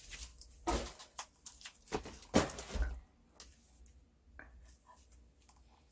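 Light rustling, scratching and a few sharp knocks as a pet hamster is handled into its maze, the loudest in the first three seconds, then only faint ticks.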